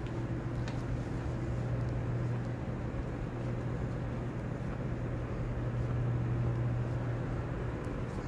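Steady low rumble and hum of a large stone church interior's background ambience, with a few faint ticks.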